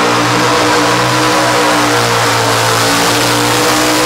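Economy hot rod pulling tractor's engine at full throttle under heavy load, dragging a weight-transfer sled, its revs held steady at one high pitch.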